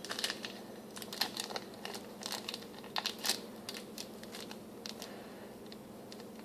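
A plastic ramen seasoning packet crinkling as it is handled, an irregular run of short crackles, over a faint steady hum.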